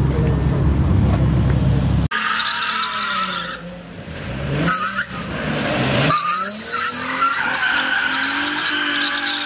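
After a low rumble that cuts off about two seconds in, a car spins donuts: its engine revs up and down while the rear tyres squeal, the squeal steady through the second half.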